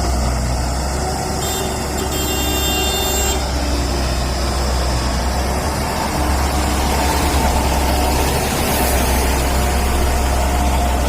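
Heavy diesel engine of a JCB backhoe loader running steadily, a little louder from about six seconds in. A short high-pitched tone sounds briefly about two seconds in.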